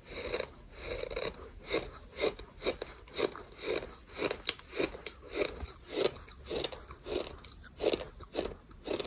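Gritty bird sand being chewed close to the microphone: a steady run of crunching bites, about two a second.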